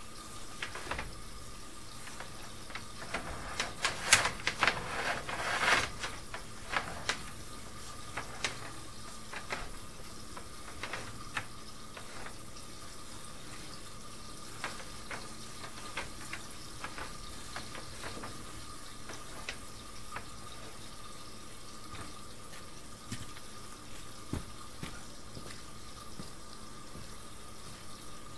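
Water running and flowing steadily down a drain line, with a faint steady high tone. Sharp clicks and splashes come scattered through it, thickest and loudest about four to six seconds in.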